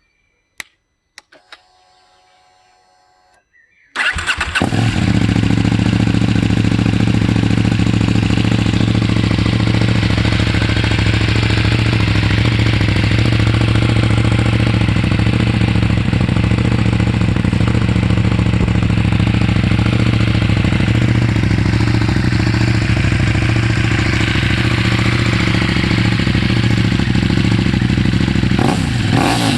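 KTM 790 Duke's parallel-twin engine breathing through an SC-Project aftermarket exhaust: a few clicks, then it starts about four seconds in and idles steadily. Near the end it begins to rev.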